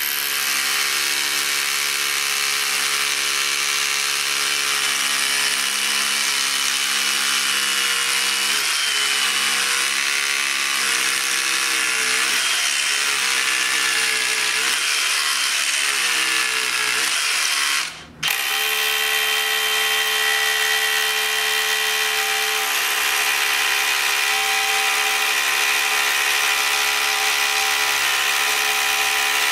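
DeWalt DCH263B cordless brushless SDS-Plus rotary hammer drilling into concrete, running steadily under load. It breaks off briefly about eighteen seconds in, then drills again.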